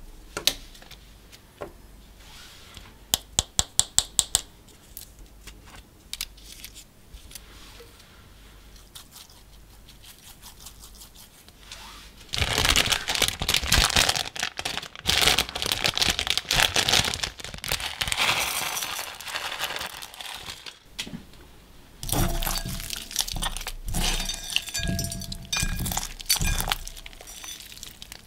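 A thin plastic packet of glitter and beads crinkling loudly as it is handled and torn open over a glass bowl. Earlier there is a short quick run of sharp clicks. Near the end, slime with beads mixed in is worked by hand with a crackly sound.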